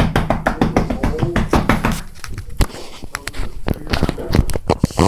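A rapid, irregular run of sharp taps and clicks, dense for the first two seconds and then sparser, with a voice mixed in near the start.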